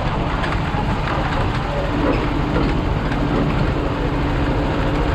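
A vehicle running with a steady low rumble, a steady hum joining it about two seconds in.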